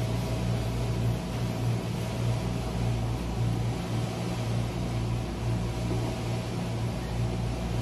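Steady low electric hum from a running appliance, with an even hiss behind it.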